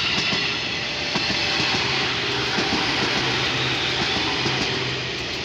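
KRL commuter electric multiple unit passing close by: a steady rush of steel wheels on rail, with clicks as the wheels cross the rail joints and a low steady hum.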